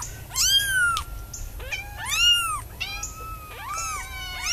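Tiny kitten mewing: about five high, thin cries that rise and fall in pitch, the loudest a little past the middle.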